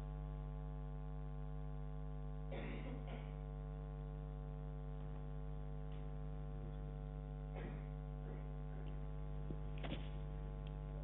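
Steady electrical mains hum, a buzz with many evenly spaced overtones, with a few faint short sounds about two and a half, seven and a half and ten seconds in.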